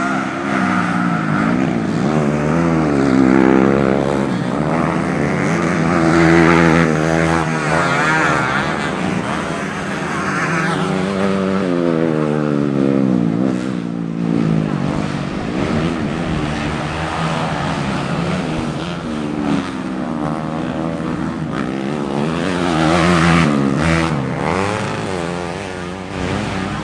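Several modified racing motorcycles running hard together, their engines revving up and down as they accelerate and shift, with the pitches overlapping and sweeping.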